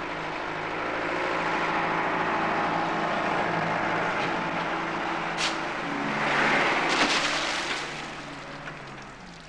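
Diesel engine of a Mercedes-Benz light truck running and drawing closer, with a short hiss about five and a half seconds in. A loud rush of noise follows as the truck throws dirt over the roadster, and the engine then fades away.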